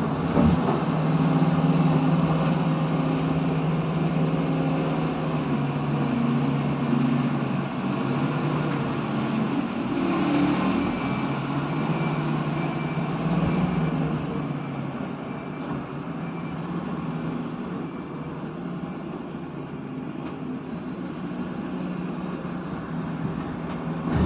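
Tata 340 excavator's diesel engine running under working load, louder for the first half and then settling to a lower, steadier level.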